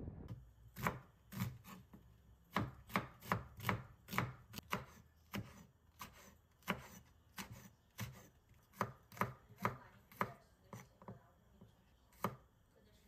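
Chef's knife slicing green chili peppers and garlic on a wooden cutting board: a run of sharp, uneven knocks of the blade against the board, about two or three a second.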